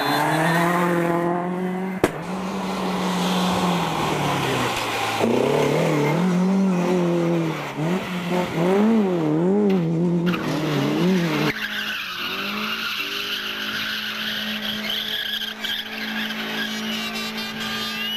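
Rally car engines under hard acceleration, the revs rising and falling through gear changes, with tyres skidding. There is a sharp crack about two seconds in. About eleven seconds in, the sound switches to an engine held at steady high revs.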